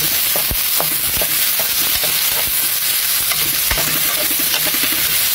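Carrot strips, onion, garlic and ginger sizzling in hot oil in a frying pan as they are stirred. There is a steady hiss, with scattered scrapes and clacks of the utensil against the pan.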